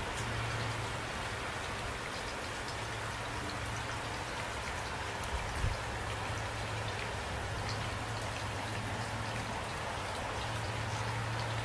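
Steady rain falling, with one brief low thump about five and a half seconds in.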